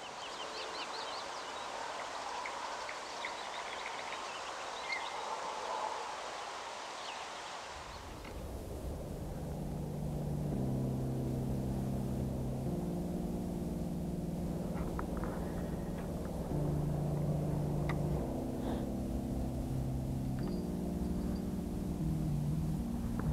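Riverside ambience with birds chirping. About eight seconds in it cuts to a low rumble, and from about ten seconds background music of slow sustained chords plays, changing every second or two.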